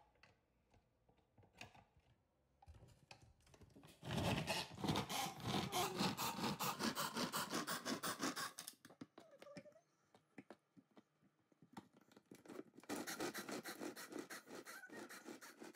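Hand-operated mini food chopper chopping tomatoes: a fast, rapid rattling of the spinning blades in two bursts, one about four seconds in lasting several seconds and another near the end, with a few light clicks of the lid and bowl between.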